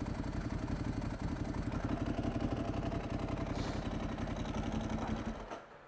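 Ducati 1098S V-twin with a full Termignoni exhaust idling with a steady, lumpy pulse, then shutting off about five and a half seconds in.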